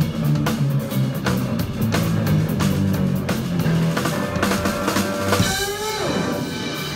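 Live jazz-funk band playing: drum kit keeping a steady beat, electric bass line and Les Paul-style electric guitar. About five and a half seconds in, the drums drop out and the guitar rings on with bent, gliding notes as the tune ends.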